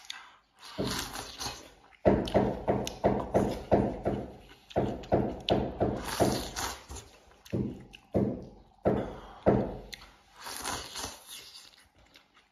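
Close-up eating sounds of a man slurping and chewing a bowl of flat noodle pieces in soup: a short slurp, then runs of quick chewing sounds about three a second, with more slurps later.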